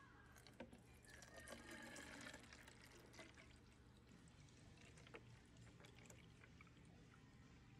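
Faint sound of thick berry lemonade mix being poured from a blender jar into a plastic bottle, liquid splashing onto the fruit inside, with a few light clicks of the jar and bottle.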